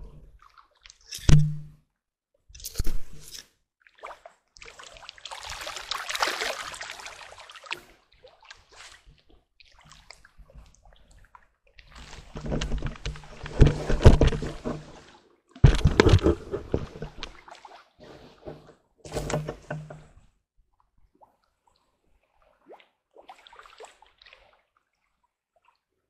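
Shallow lake water splashing and sloshing in irregular bursts as a hooked rohu fish is played and landed by hand at the bank, with a sharp knock about a second in. It grows quiet after about 20 seconds.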